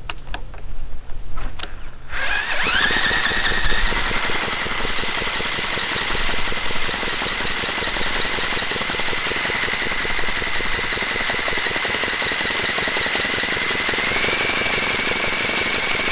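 Cordless drill whining as it spins a model Jerry Howell V-twin petrol engine over by its crankshaft, with the engine turning over without firing. The sound starts about two seconds in, rises quickly in pitch, then holds steady, stepping up slightly near the end.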